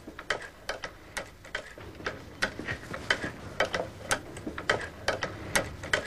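Cobbler's leather-sewing machine running, its needle and cam mechanism clicking and knocking in a steady rhythm, about two strong beats a second with lighter clicks between.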